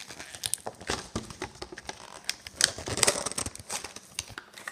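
Cardboard toy packaging being handled and pulled apart: crinkling and rustling with a string of quick clicks and taps.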